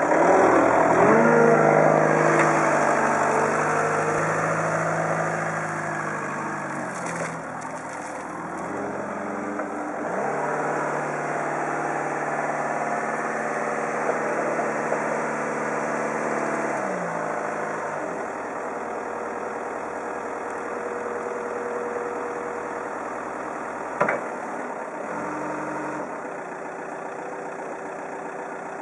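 Jungheinrich DFG 425s diesel forklift engine running as the truck drives up and raises its mast, revving up and settling back several times. A single sharp click comes about three-quarters of the way through.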